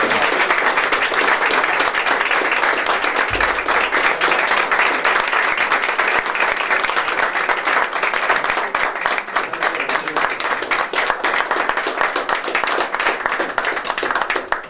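An audience applauding: dense, steady clapping that thins into more separate claps toward the end.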